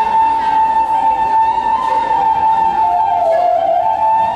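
A flute playing long held notes. The pitch slides down in small steps a few seconds in and climbs back up near the end.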